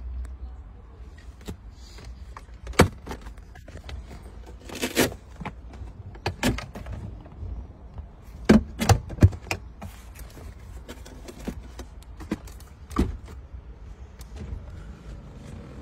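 Plastic clicks and knocks from a BMW E38 7 Series' rear centre armrest as its compartment lid is opened and closed and its console buttons are pressed. There are scattered sharp clicks, a short scraping noise about five seconds in and a quick run of knocks around eight to nine seconds in, over a low steady hum.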